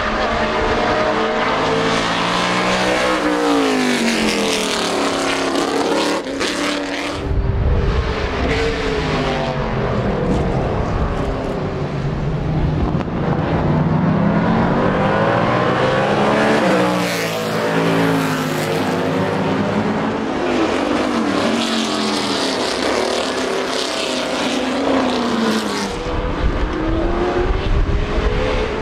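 Lola T70 Mk3B race cars with 5-litre Chevrolet V8 engines passing at racing speed one after another, each engine note rising and falling as the car comes by and goes away, with gear changes between sweeps.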